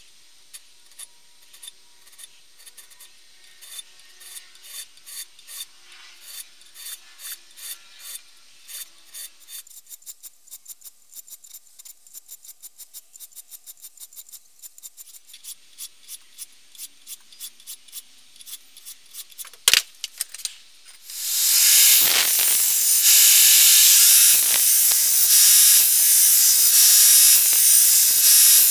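A round file rasping back and forth on a leaf-spring steel blank in a vise, about two strokes a second, cutting saw-tooth notches into the spine. About twenty seconds in, a belt grinder starts and runs steadily, much louder, as the blank is ground on its belt.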